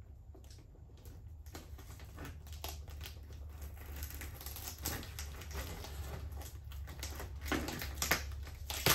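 Fingernails picking and scratching at a cardboard shipping box, feeling for an edge to open it: a run of irregular small clicks and scrapes that get louder near the end.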